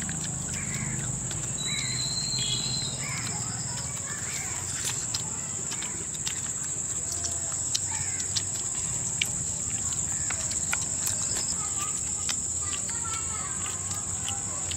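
Steady high-pitched drone of insects (crickets or cicadas), with scattered small clicks and smacks of people tearing and chewing grilled chicken by hand.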